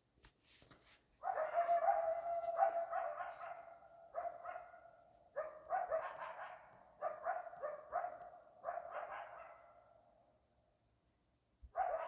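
Coyotes howling. Several overlapping voices call in a string of short held notes about a second apart, fall silent about ten seconds in, and start again just before the end.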